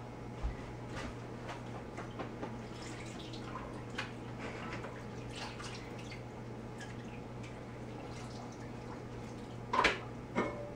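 Water dripping and splashing in a kitchen sink as something is rinsed by hand, with faint scattered clinks and a sharper clatter near the end.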